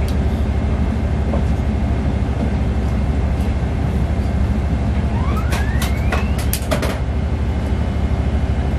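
Cabin noise inside a Boeing 777-300ER airliner: a steady low rumble, with a brief rising whine and a quick run of sharp clicks about five to seven seconds in.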